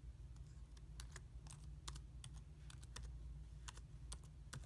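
Typing on a computer keyboard: quiet, irregular clicks of single keystrokes, a few a second, with short pauses between runs of keys.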